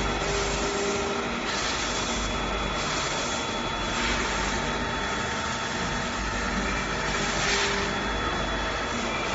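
CAK50186 CNC lathe knurling a long shaft: the knurling wheels rolling under pressure against the turning shaft make a steady, rough mechanical noise, with a constant high whine over it.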